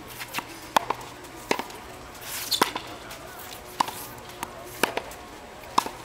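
Tennis racket striking balls: a sharp pop with a short ring about once a second, with fainter knocks in between.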